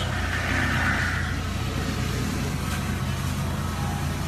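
Diesel engine of a land-clearing skid steer running steadily, heard from inside its mesh-screened cab, with a higher rushing whine over it in the first second or so.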